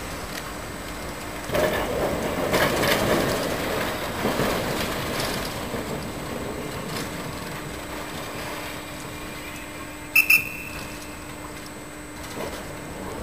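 Standard-type tram's wheels running and clattering over the rails, loudest a couple of seconds in, then fading as the tram moves off, with a faint steady hum underneath. About ten seconds in come two sharp, high dings in quick succession.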